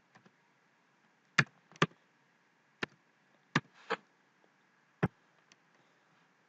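Computer keyboard keys pressed one at a time as a short word is typed: five sharp, separate clicks with uneven gaps. One more click comes about five seconds in, as a mouse button is pressed.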